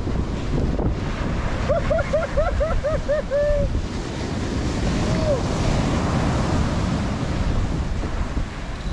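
Surf breaking and washing up a sand beach, with wind buffeting the microphone. About two seconds in comes a quick string of about eight short rising-and-falling calls, and one more a little past halfway.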